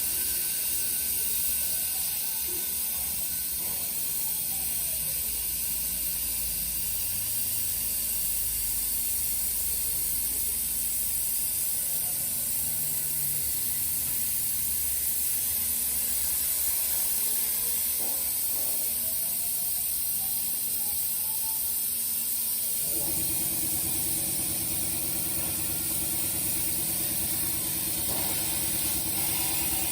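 CNC plasma cutter working on thin steel plate: a steady high hiss from the torch, with faint rising and falling whines as the machine's motors speed up and slow down along the cut. About 23 s in, a steady low machine hum starts and continues.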